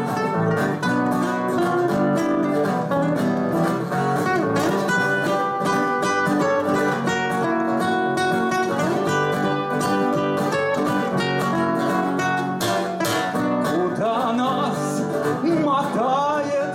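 Two acoustic guitars playing an instrumental passage together: quick picked notes over strummed chords. A man's voice starts to come in near the end.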